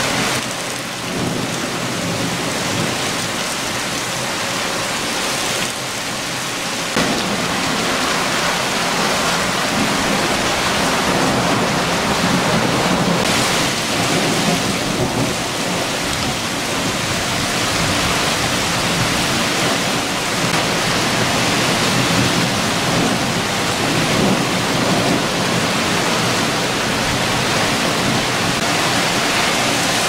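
Heavy rain pouring steadily onto tree foliage and grass, a dense, even hiss.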